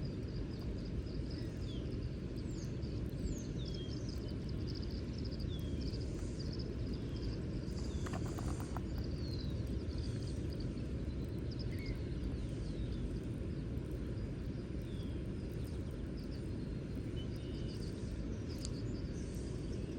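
Outdoor ambience: a steady low rumble under many short, high, downward-sliding bird chirps scattered throughout. A brief rattle of clicks comes about eight seconds in.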